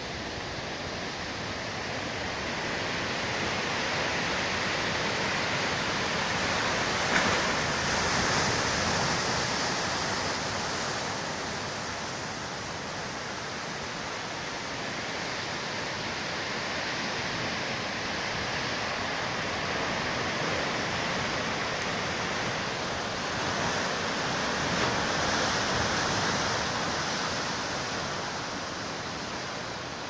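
Sea surf breaking and washing over a rocky shore: a continuous rushing that swells louder twice as sets of waves come in.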